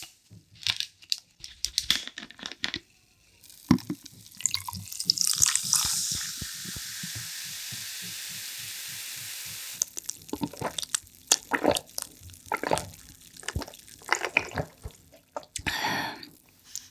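Cola poured from a plastic bottle over ice into a glass mug, with a steady fizzing hiss from about six to ten seconds in. Short clicks and knocks of the bottle and ice in the glass come before and after the pour.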